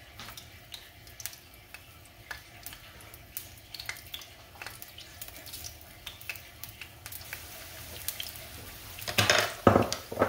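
Cornstarch-battered shrimp frying in hot oil in a nonstick pan: a steady sizzle with scattered crackles and pops as the shrimp go in. A few louder knocks and spatters come near the end.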